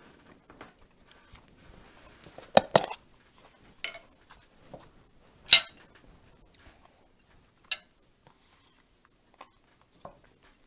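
Metal cutlery clinking against a china plate: a handful of sharp separate clinks, the loudest about halfway through.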